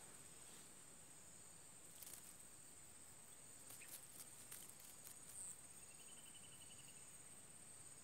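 Faint, steady high-pitched trill of insects, with a few soft clicks in the middle and a short run of faint ticks a little after six seconds in.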